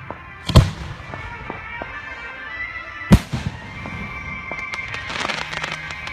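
Fireworks going off: two loud booms about two and a half seconds apart, then a rapid crackle of many small pops near the end, with music playing underneath.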